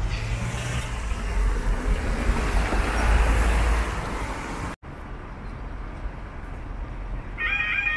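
A road vehicle passes the crossing with a rush of noise that swells and fades over the first four seconds and then breaks off suddenly. Near the end the level crossing's yodel alarm starts its warbling wail, about three warbles a second, as the crossing begins to close for a train.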